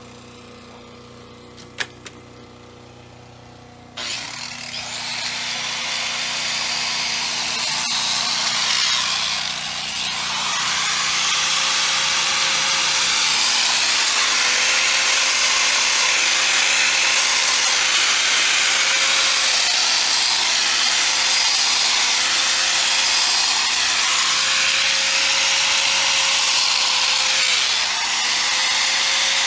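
Angle grinder with a masonry blade starting up about four seconds in and cutting a groove into hard cement-stabilized compressed earth block, a loud steady grinding. The motor's whine dips now and then as the blade is pressed into the block.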